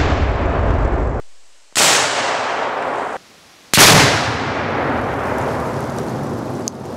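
A two-pound binary exploding target detonating when hit by a rifle shot, heard in repeated edited takes: the rumble of one blast cuts off, then two more sudden loud blasts about two seconds apart. Each is followed by a long rumble that slowly fades.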